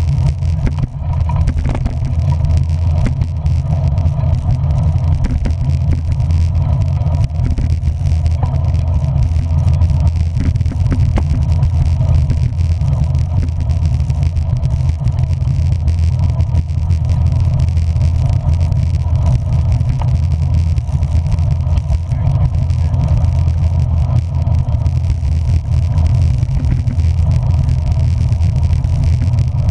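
Steady low rumble of a vehicle under way, engine and road noise, holding even with no clear changes.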